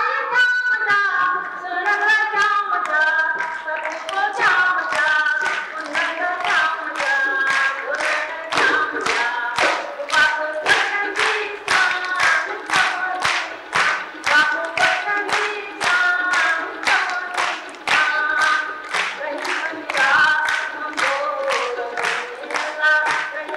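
A woman's voice singing a Sindhi folk song, with steady hand clapping at about two claps a second keeping time; the clapping settles into a regular beat about four seconds in.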